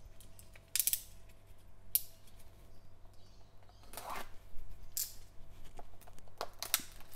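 Box cutter slitting the plastic shrink wrap on a cardboard trading-card box, heard as a series of short, sharp, scratchy strokes about a second apart, then the wrap and lid flap being pulled open near the end.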